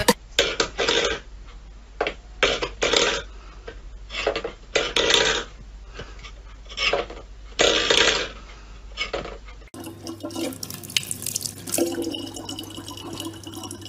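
A string of short, irregular clatters and knocks, then, about ten seconds in, a kitchen tap running a thin stream of water into a plastic bottle.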